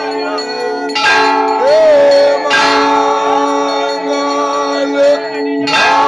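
Temple bells ringing continuously during an aarti, their ringing tones hanging on. Sharp louder strikes come about a second in, again at two and a half seconds and near the end. A held tone that wavers in pitch sounds over the bells.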